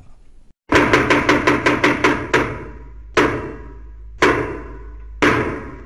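A brigadier's staff knocking on a wooden stage floor: a fast run of about a dozen knocks, then three slow, evenly spaced knocks, the French theatre's "trois coups" that signal the curtain is about to rise.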